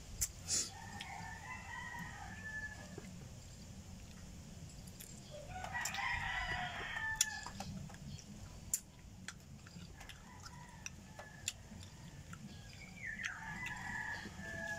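A rooster crowing three times, the loudest crow about six seconds in, with faint crows near the start and near the end. Small sharp clicks are scattered between the crows.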